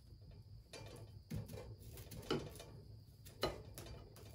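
A kitchen knife cutting through raw sweet potato, the blade knocking against a glazed plate three times about a second apart.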